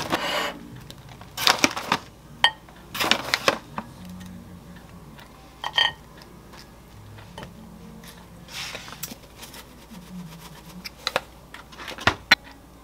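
Granola clusters shaken from a plastic pouch and set by hand onto a salad plate. The pouch crinkles and rustles, with a scattering of short, sharp clicks as the clusters land and touch the plate.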